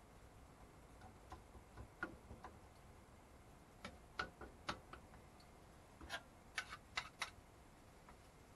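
Faint, scattered clicks and taps of a utensil against a frying pan as chicken and onions are stirred, a few at first, then more often in the second half.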